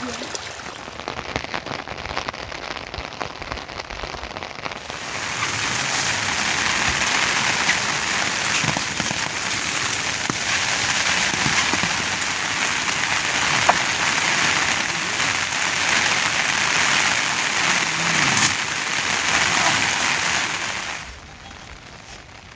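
Heavy rain falling on surfaces, a dense steady patter of drops. It grows louder about five seconds in and drops away abruptly near the end.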